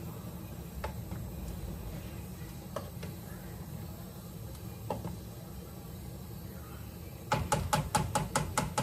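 Quiet kitchen background with a few faint isolated clicks, then a quick run of light knocks, about five a second, starting near the end.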